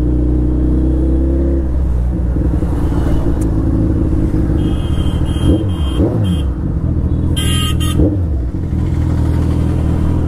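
Riding in town traffic: a motorcycle engine runs steadily, then changes pitch about two seconds in. Vehicle horns honk several times around the middle, the loudest near the end of that stretch, among passing traffic.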